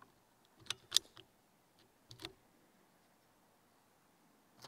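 Air rifle being handled between shots: several sharp clicks, a quick group of three about a second in, the middle one loudest, then two more a little over a second later.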